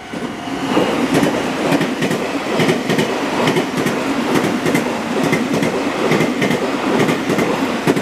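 Nankai Main Line electric train passing over a level crossing, wheels clacking over the rail joints in a steady rhythm, with the crossing's warning bell ringing under the train noise.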